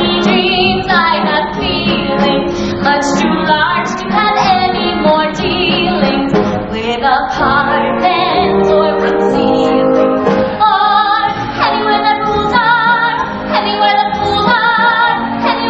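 A woman singing a show tune with wavering vibrato over a theatre pit orchestra, in a live stage-musical performance.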